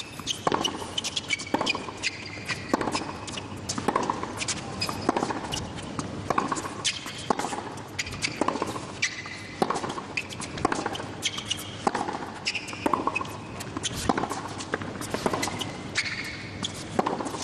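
Hard-court tennis rally: racket strikes on the ball about once a second, with ball bounces and sneakers squeaking on the court between shots.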